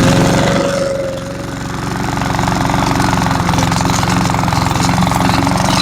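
Cub Cadet walk-behind mower's Powermore 173cc engine running at a steady speed just after starting. Its loudness dips briefly about a second in, then holds steady.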